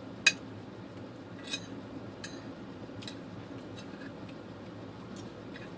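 Eating sounds: a sharp click about a quarter second in, then three fainter clicks over the next few seconds, over a steady low background hum.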